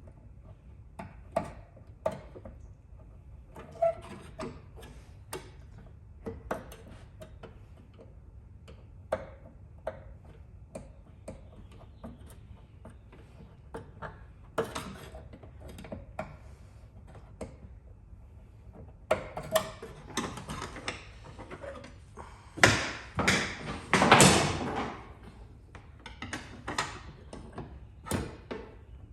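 Scattered light clicks and taps of hand tools at work on a car body, with a cluster of louder, noisier strokes about 23 to 25 seconds in.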